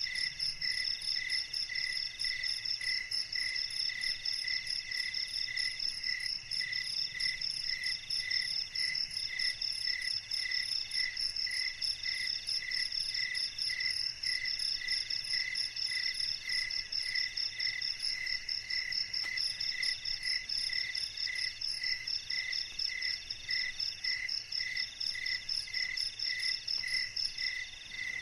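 Night chorus of crickets and other insects: several overlapping trills at different pitches. The lowest pulses slowly and regularly, one runs in phrases of a second or so with short gaps, and the highest stops near the end.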